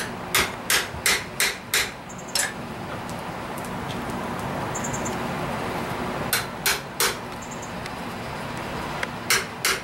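Hand hammer striking a chisel held against red-hot steel on an anvil, with sharp metallic blows about three a second. A run of six comes near the start, three more past the middle and two near the end, as the chisel cuts into the hot metal.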